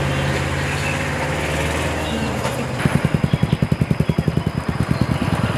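A steady low hum, then from about three seconds in a motorcycle engine running with an even low thump, about ten beats a second.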